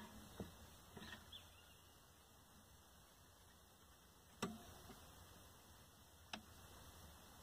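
A handful of sharp metallic clicks and clinks from a hinged wire grill basket being handled and closed, scattered a second or more apart, the loudest about four seconds in, against a very quiet background.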